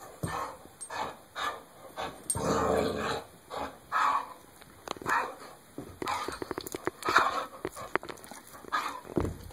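Pitbull-Labrador mix dog playing rough with a rubber Kong bone: a run of short, noisy play growls about every half second to a second, with small clicks from the toy and a knock near the end.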